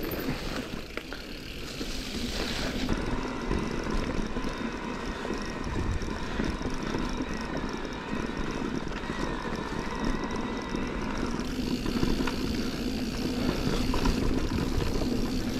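Electric mountain bike's Bosch Performance CX mid-drive motor whining steadily as it assists pedalling, over the rumble of tyres rolling on a dirt trail and wind noise on the microphone.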